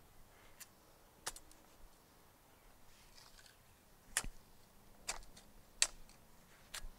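Scattered light clicks and knocks, about six over several seconds, the sharpest a little past four seconds and again near six, from hands handling a small pot and soil while setting in a plant.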